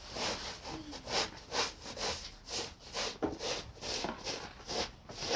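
Snow crunching in a steady rhythm, about two or three short crunches a second.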